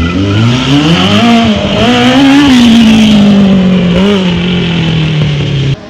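Kawasaki KZ1000 inline-four motorcycle engine in a racing lawn mower revving hard as it accelerates away, the pitch climbing for about a second and a half, then holding and slowly falling. The sound cuts off suddenly near the end.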